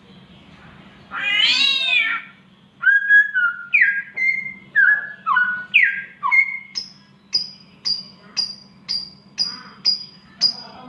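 Samyong songbird singing in mimicry: a single cat-like wavering yowl about a second in, imitating a cat in heat, then a run of clear whistled notes that step up and down, then a steady series of short, sharp, high chirps, about two or three a second.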